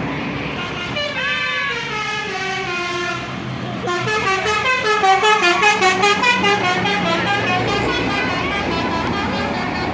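Bus 'telolet' musical air horn playing a tune: a sliding note about a second in, then from about four seconds a fast, louder run of changing notes, over the steady hum of the bus's engine.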